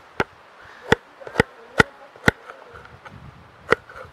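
Kitchen knife cutting an onion on a cutting board: six sharp knocks of the blade striking the board, unevenly spaced, with a pause of over a second before the last.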